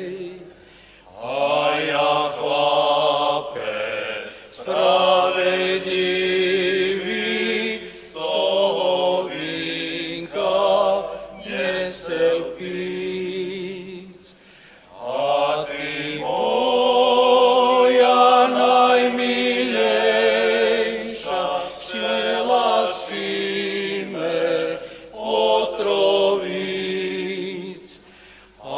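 Men's folk group of five voices singing a traditional Rusyn lads' song a cappella, in long phrases with short breaks between them.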